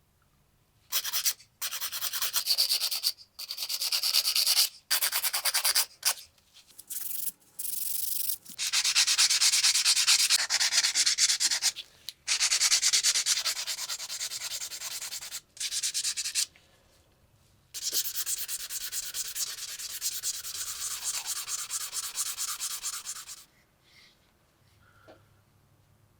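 Abrasive sanding on the rusty metal of a lighter, in a run of bursts of rapid scratchy rubbing broken by short pauses, stopping near the end.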